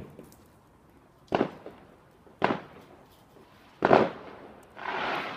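Fireworks going off: three sharp bangs about a second and a quarter apart, each with an echoing tail, the third the loudest, then a short hiss near the end.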